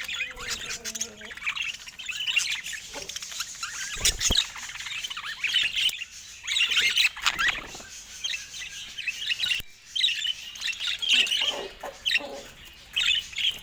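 Budgerigars chattering: a busy run of quick, high chirps, squawks and warbles, with a brief break about ten seconds in.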